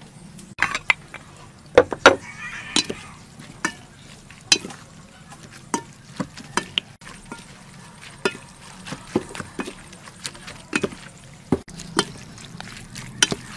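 A pork skin salad being tossed in a stainless steel bowl: a wooden utensil and a hand mix shredded vegetables and sliced pork skin in dressing, with irregular clicks and taps against the bowl.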